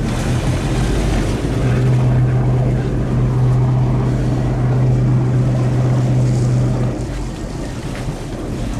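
Motorboat engine running under way, a steady low hum over wind and water noise; the hum grows stronger about two seconds in and eases off near seven seconds.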